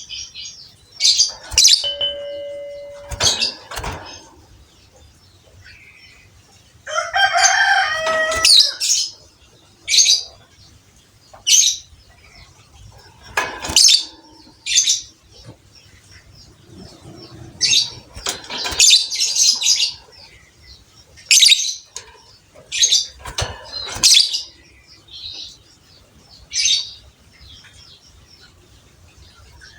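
Lovebirds calling in short, sharp, high-pitched chirps and shrieks, one every second or two at irregular intervals, with a longer, lower call about seven seconds in.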